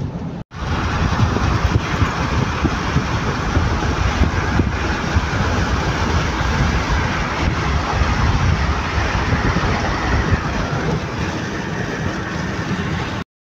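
Steady road noise heard from inside a moving car: engine, tyre and wind noise. It drops out briefly about half a second in and stops abruptly near the end.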